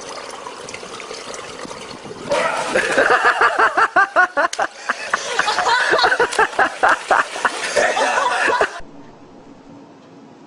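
A person laughing hard in quick, repeated bursts for several seconds, after a couple of seconds of steady hiss. The laughter cuts off suddenly and a quiet, steady background follows.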